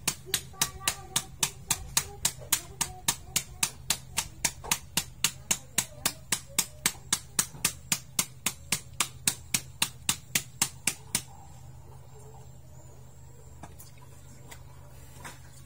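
A wooden stick pounding meat on a wooden cutting board to tenderise it. The strikes are sharp and steady, about three and a half a second, and stop about eleven seconds in.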